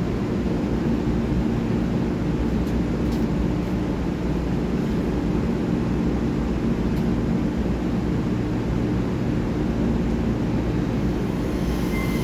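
Taiwan Railway EMU3000 electric train standing at the platform, giving a steady hum with several low tones from its onboard equipment.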